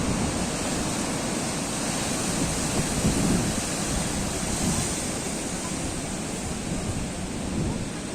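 Atlantic surf breaking in a continuous, steady rush of sea noise, with wind buffeting the microphone.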